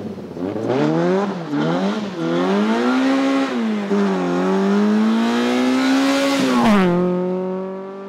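Rally car engine accelerating hard through the gears, its pitch climbing and dropping at each upshift, then dropping sharply as the car passes about seven seconds in and fading as it drives away.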